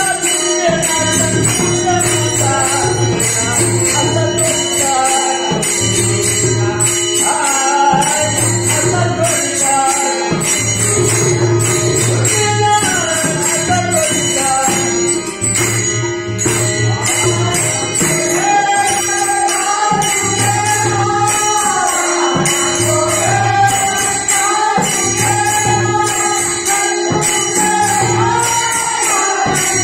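Marathi abhang devotional singing: a man's voice leads the melody over a harmonium, with small brass hand cymbals (taal) clashing in a steady rhythm.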